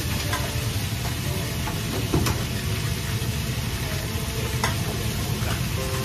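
Food sizzling in a wok on a restaurant stove over a steady low rumble, with sharp clinks of metal ladles and utensils every second or so.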